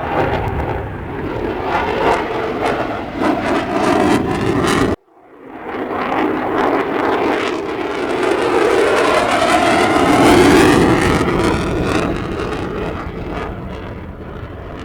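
Fixed-wing aircraft engine noise in flight. The sound cuts off suddenly about five seconds in. A second pass then builds up with a sweeping, shifting tone, is loudest around ten seconds in, and fades away toward the end.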